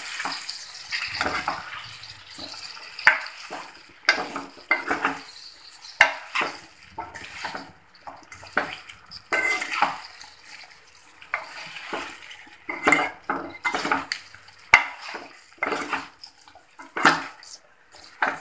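Spoon stirring in a kadai, scraping and knocking against the pan in irregular strokes as the pickle mixture is turned over.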